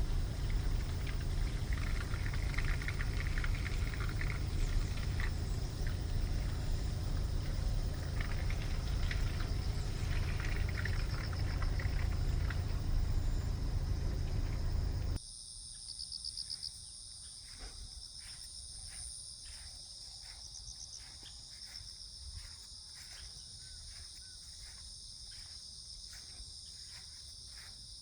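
A loud low rumble with a steady high-pitched chirring over it, then an abrupt cut about fifteen seconds in to a quieter scene of insects chirping in steady high-pitched trills, with faint ticks.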